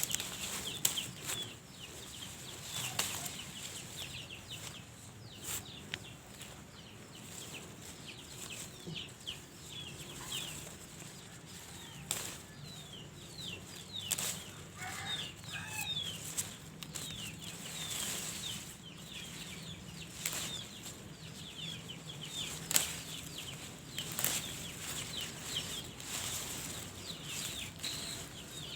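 Birds chirping over and over in short, falling chirps, with scattered sharp knocks and clicks and a low steady hum underneath.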